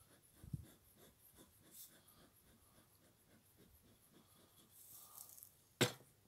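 Faint scraping and rubbing as a plastic hive cover board is worked loose and lifted off a beehive, with a sharp click near the end.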